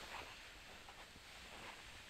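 Near silence: quiet winter outdoor air with faint, soft, irregular crunches, like steps in snow.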